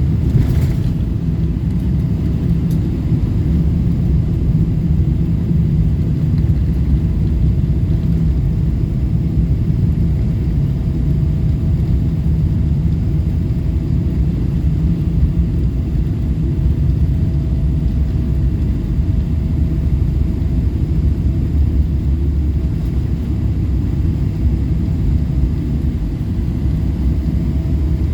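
Cabin noise inside a Boeing 777-200LR airliner: a steady low rumble with a faint steady hum above it, and a short hiss about half a second in.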